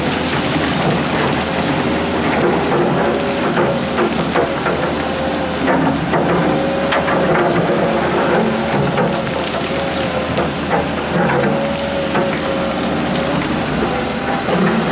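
Komatsu PC230-11 hydraulic excavator's diesel engine running steadily under load while the bucket scrapes into a gravelly bank, with frequent short knocks and clatters of stones and rock throughout.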